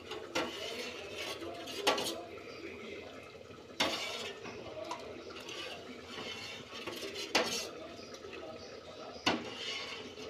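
Steel spoon stirring milk in a steel pot, scraping and clinking against the sides, with about five sharper metal clanks at uneven intervals. The milk is being curdled with vinegar water to make chhena.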